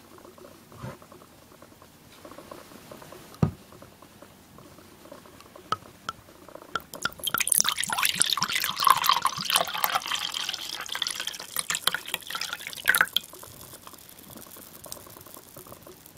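Red wine poured from a glass bottle into a ceramic mug, splashing for about six seconds before it stops. A single soft knock comes earlier, before the pour.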